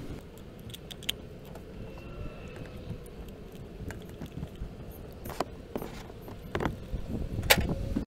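Small sharp metallic clicks and taps of a Pertronix Ignitor module and its screws being handled and seated on a distributor's breaker plate. The clicks are scattered, with the loudest near the end, over a low steady rumble.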